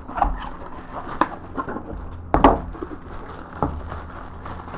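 A product box being handled, giving scattered taps and knocks, the loudest about two and a half seconds in.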